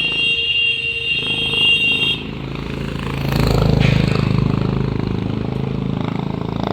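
An engine running steadily, louder from about three seconds in. A steady high-pitched whine sounds alongside it for the first two seconds and then stops.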